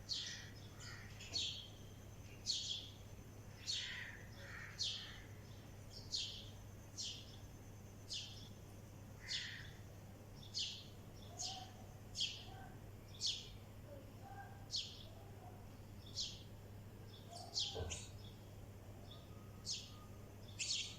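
Sparrow chirping: short, sharp high chirps repeated about once a second, with a few softer, lower bird calls in between.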